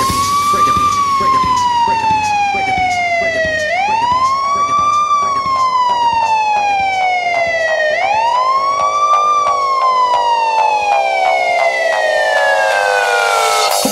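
Siren wail in a hip-hop soundtrack. It runs three slow cycles, each a quick rise in pitch and a long fall, over music with sustained notes and light, evenly spaced ticks.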